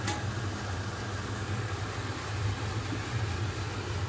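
Kitchen cooker hood's extractor fan running steadily with a low hum, and one brief click right at the start.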